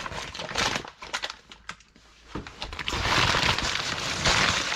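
A bag being handled and worked open by hand: crackly rustling that eases off about a second in and comes back thicker over the last two seconds.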